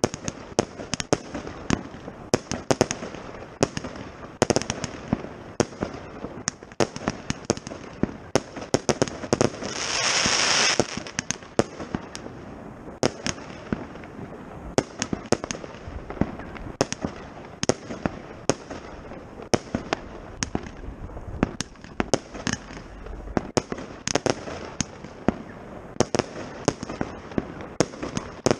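Consumer firework cakes firing: a dense, irregular run of sharp bangs and pops. About ten seconds in there is a loud hiss lasting about a second.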